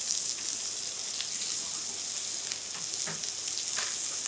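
Butter melting and sizzling with sliced onions in a frying pan over medium heat: a steady hiss with a few faint crackles.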